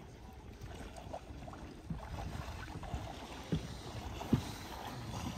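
Wind rumbling on the microphone in an open field, with a couple of soft knocks in the second half.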